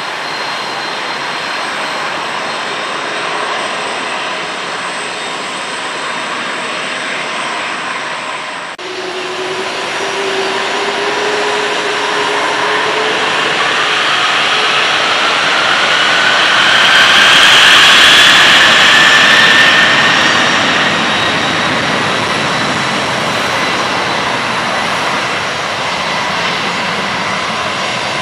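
Airbus A310 jet engines running, first at a taxiing whine. After a sudden cut they spool up to take-off thrust with a rising whine. The jet noise swells to its loudest past the middle, then eases as the aircraft rolls away.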